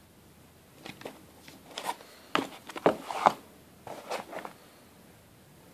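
Rustling and crinkling of crumpled packing paper and a cardboard box as a paperback book is handled in it, in irregular bursts from about a second in, loudest around three seconds in.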